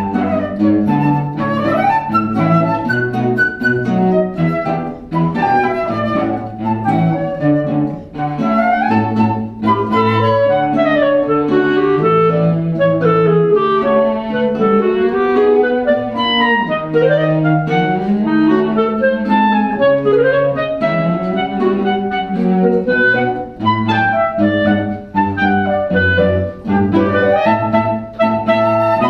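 Instrumental music with no voices. Several melodic lines weave quick runs up and down over sustained low notes.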